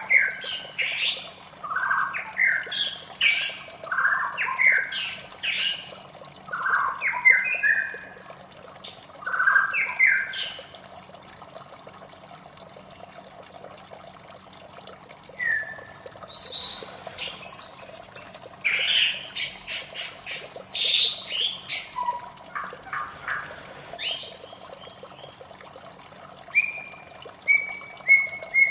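White-rumped shama singing: quick, varied whistled phrases, a pause of a few seconds partway through, then more phrases ending in a run of repeated clear notes, about two a second. A steady sound of running water lies underneath.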